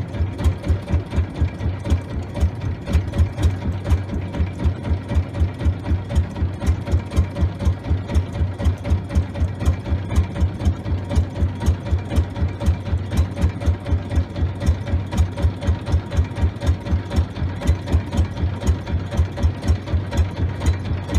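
A small boat's engine running at a steady, even pulse of about four beats a second.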